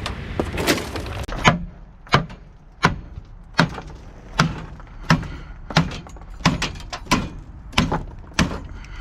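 A steady series of sharp knocks, about three every two seconds, each with a dull low thud under it.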